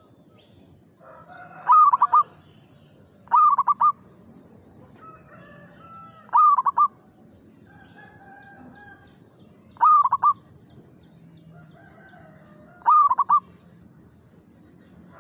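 Zebra dove (perkutut) cooing: five song phrases about three seconds apart, each a short rising note followed by a quick run of three or four rolling coos.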